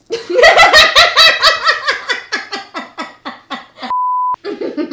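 Hearty laughter in a quick run of repeated ha-ha pulses, about four a second, fading over some three and a half seconds. It is cut off by a steady test-tone beep lasting about half a second.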